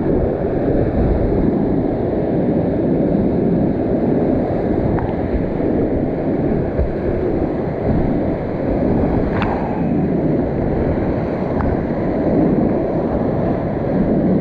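Whitewater rapids of a creek rushing loudly and steadily around a kayak running the drop. A few sharp clicks come through, the loudest about nine and a half seconds in.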